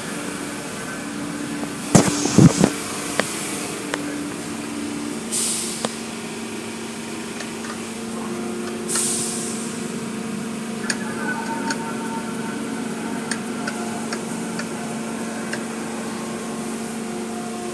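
Automatic car wash running, heard from inside the car: a steady mechanical hum with two short hissing bursts. A few loud knocks come about two seconds in.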